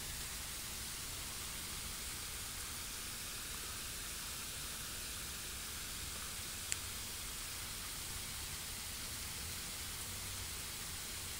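Steady, even background hiss with one brief tick about two-thirds of the way through.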